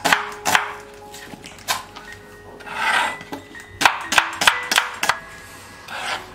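Kitchen knife chopping onions on a wooden cutting board: a string of irregular sharp knocks of the blade on the board, with a softer scraping sound about three seconds in.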